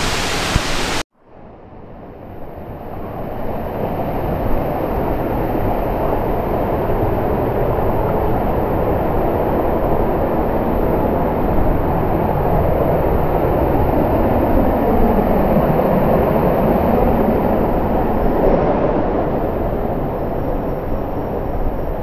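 Stream water rushing over rocks: a steady, even rush that fades in after a brief silence about a second in.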